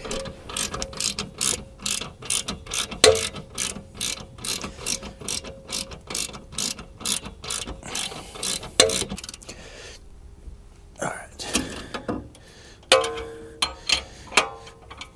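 Hand ratchet wrench clicking as a suspension-arm bolt is turned by hand, a steady run of about three to four clicks a second, then a pause and two shorter bursts of ratcheting near the end.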